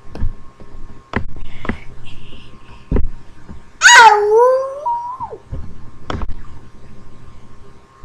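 A toddler's high-pitched squeal about four seconds in: it starts as a shriek, slides down, then wavers and rises slightly before breaking off. A few sharp knocks and taps come before and after it.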